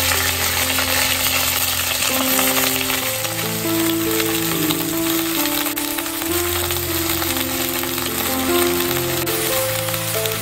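Chopped potato, brinjal and gourd stems sizzling steadily as they fry in hot oil in an aluminium karahi. A slow background melody plays underneath.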